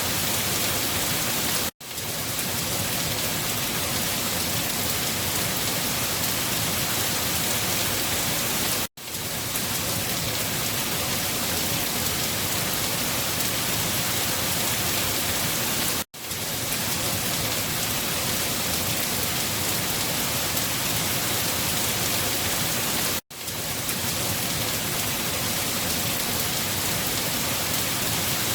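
Steady heavy rainfall, an even hiss of many drops. The sound briefly cuts out and fades back in about every seven seconds, four times, where a short looped rain recording restarts.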